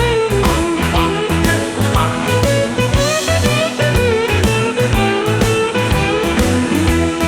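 Blues band instrumental break: a lead guitar plays bending notes over a steady drum beat and bass.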